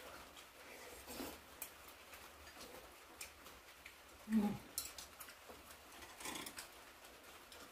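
Quiet eating sounds from people eating doenjang cabbage soup: a few soft mouth noises and slurps as the soup is eaten with chopsticks and sipped from the bowl. The loudest sound, a short low one, comes about four and a half seconds in.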